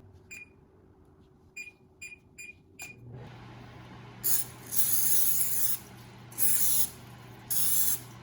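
A few light clinks, then a steady low hum with five loud bursts of spraying hiss, each half a second to a second long.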